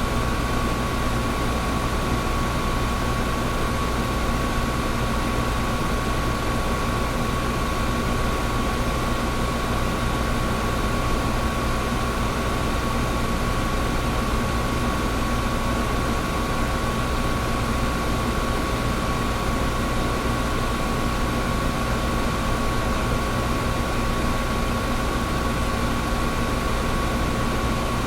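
Air conditioner running steadily: an even rush of airflow with a constant hum and a steady high tone, unchanging throughout.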